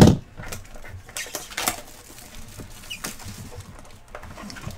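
Handling of a Topps Tier One baseball card box and its plastic-wrapped contents: a sharp knock right at the start, then soft rustling and scattered light clicks of cardboard and plastic.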